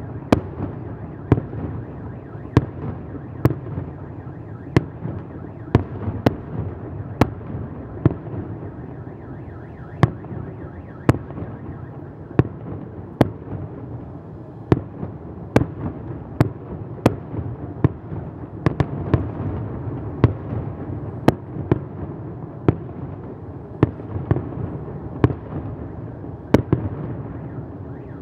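Aerial firework shells bursting in a large display, with sharp bangs at irregular intervals of roughly one a second over a continuous low rumble.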